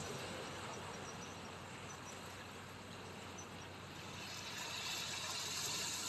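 Waves washing on a shoreline: a steady hiss of water that swells up over the last couple of seconds.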